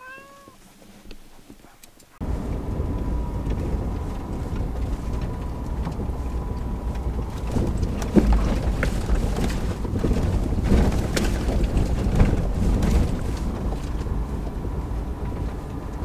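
A tabby cat meows once, briefly. About two seconds in, the sound cuts abruptly to a vehicle driving on a snow-covered dirt track, heard from inside the cabin: a steady loud rumble with occasional knocks and bumps.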